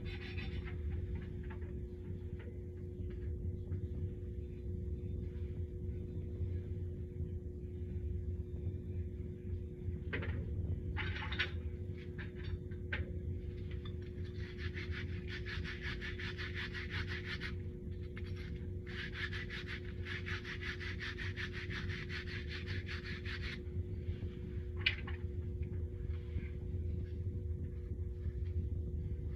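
Plumbing solder work on a copper cold water line: a steady low rumble with a constant hum, broken in the middle by two stretches of scratchy hissing and a few short clicks.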